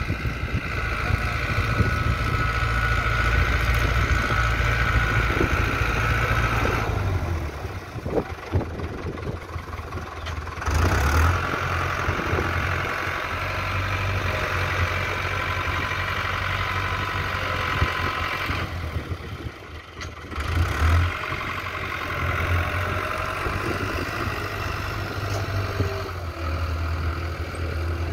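Farm tractor's diesel engine running under load as it pulls a disc harrow through a field. The engine note drops back twice, about a quarter of the way in and again after the middle, then picks up again.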